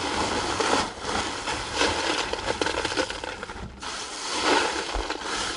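Drainage rock rattling and crunching as it is poured from a bag into a drain trench over perforated pipe and spread by hand. It comes in several louder surges.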